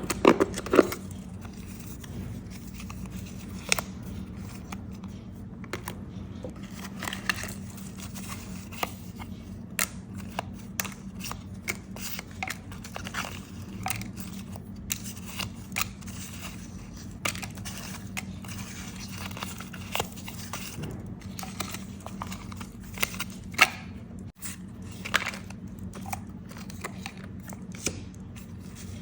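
Paper and stationery being handled while making a journal page: rustling and crinkling of paper with scattered sharp clicks and taps, over a steady low hum.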